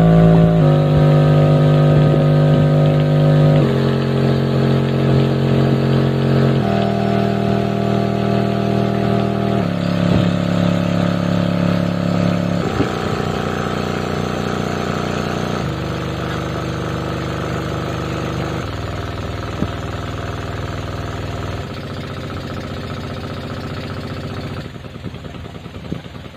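Kinetic subwoofer driven by an IRS2092S class D amplifier, playing a stepped low-frequency test tone. It is a buzzy, overtone-rich hum that drops to a lower pitch about every three seconds. In the last couple of seconds it turns quieter and the cone gives a low flutter as the test frequency gets very low.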